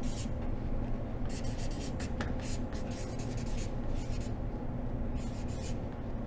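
Felt-tip marker writing on flip-chart paper: short strokes in quick runs with brief pauses between letters, over a steady low room hum.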